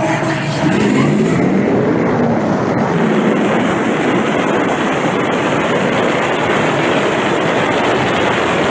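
Loud, steady wind rushing over a car-mounted camera as a Tesla Model 3 accelerates hard down a drag strip. An engine note rises in pitch during the first two seconds, from the Ford SVT Lightning pickup launching in the next lane.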